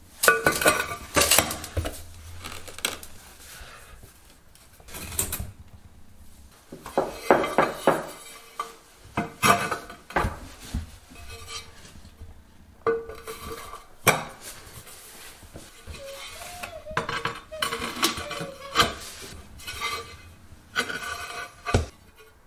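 Ceramic floor tiles being set into mortar: irregular clinks, taps and short scrapes as the tiles are slid into place and knocked against neighbouring tiles and plastic tile spacers.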